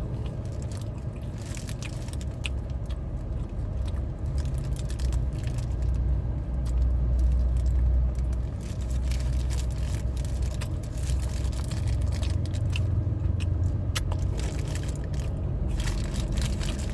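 Someone chewing a fish fillet burger, with small scattered clicks and crackles, over a steady low rumble that swells for a couple of seconds near the middle.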